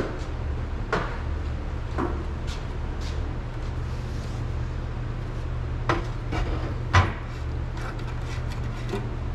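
Scattered knocks and clunks as a metal can of acetone is fetched and handled on a steel workbench, the loudest about seven seconds in, over a steady low hum.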